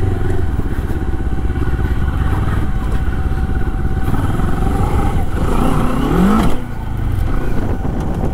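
Moto Morini X-Cape 650's 649cc parallel-twin engine running as the bike is ridden. Its revs rise about six seconds in, then drop away sharply.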